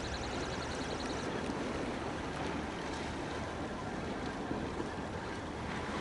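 Wind rumbling on the microphone over small waves washing against a rocky seawall, with a spinning reel's fast high whirr as the line is wound in for about the first second and a half.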